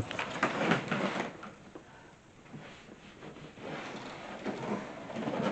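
Cardboard and packing rustling and scraping as the washing machine is worked out of its box, with a cluster of knocks and scrapes in the first second and a longer, steadier spell of rubbing and rustling in the second half.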